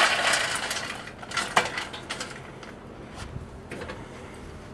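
Hot lump charcoal poured into a metal wire basket, the pieces clattering and clinking against the metal and each other. The clatter is loudest at the start, thins out over the first second or two, and ends in a few scattered clinks.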